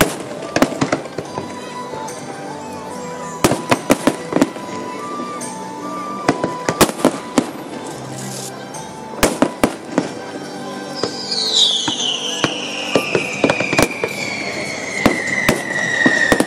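Fireworks display: sharp bangs of shells bursting in clusters, with music playing underneath. From about two-thirds of the way in, a long whistle glides steadily downward in pitch.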